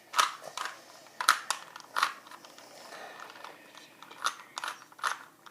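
3x3x3 Rubik's Cube being turned quickly by hand: a string of irregular plastic clicks and clacks as the layers snap around, with a quieter stretch near the middle.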